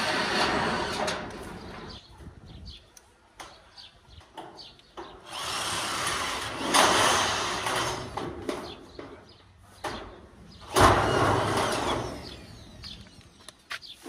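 Tool work on building materials: three bursts of rough scraping noise lasting a couple of seconds each, the loudest starting with a sharp knock about eleven seconds in.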